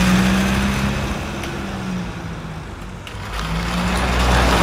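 Remote-control toy car driving over rough concrete: a steady motor hum with gritty wheel noise. It dips about two seconds in and swells again near the end.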